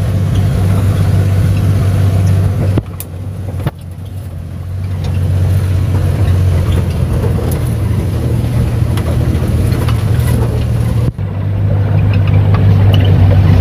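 Suzuki F6A three-cylinder engine of a multicab running under way, heard from inside the cab, with a steady low hum and road noise. The engine sound drops off about three seconds in and builds back up over the next two seconds.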